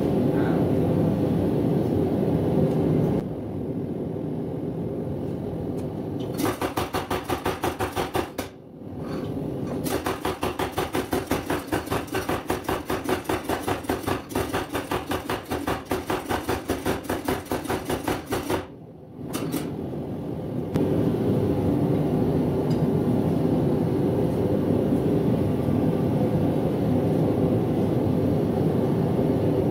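Homemade motor-driven power hammer pounding hot coil-spring steel in rapid, even blows, in two runs with a short pause between them. A propane forge runs with a steady roar before and after the hammering.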